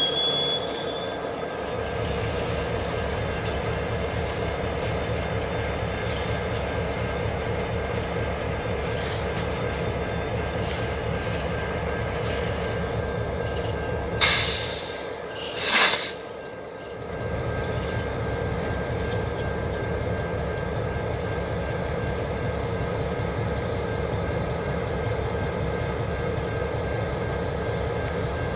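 Diesel-electric switching locomotives running as they creep along the track, a steady engine rumble with a brief wheel squeal that fades about a second in. Two short, loud bursts of noise come about a second and a half apart, roughly halfway through.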